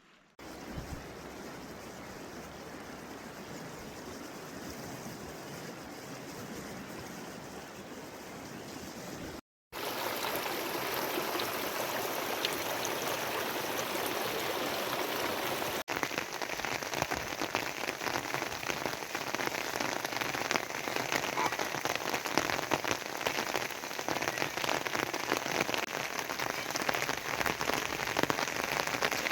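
Steady rain falling. It cuts out for a moment about a third of the way in and comes back heavier, with many separate drop hits.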